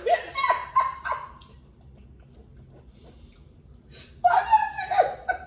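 Women laughing: a chuckling burst at the start, a quiet gap, then more laughter near the end.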